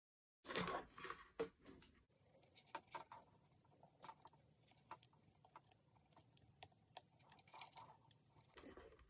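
Faint, scattered clicks and rustles of a plastic USB plug and cable being handled and pushed into an extension cable's socket.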